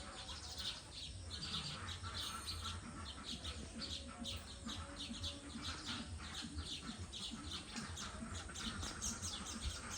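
Baya weavers chirping at their nests: a steady stream of short, high chirps, several a second, over a low steady rumble.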